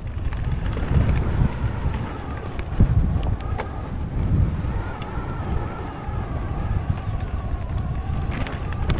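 Wind buffeting the microphone and uneven tyre and trail rumble from a mountain bike riding a race stage at speed, with a faint wavering whine and a few sharp clicks and rattles.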